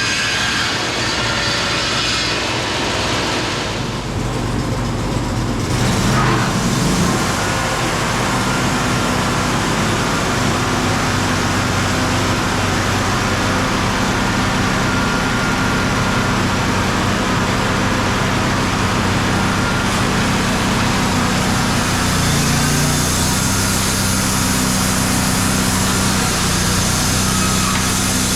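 Wood-Mizer LT35 band sawmill running while sawing black walnut boards: a steady engine drone under the hiss of the band blade. The sound grows louder about six seconds in, and the engine's pitch shifts about three-quarters of the way through.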